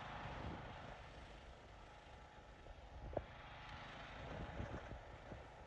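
Riding lawnmower engine idling faintly, with a single knock about three seconds in.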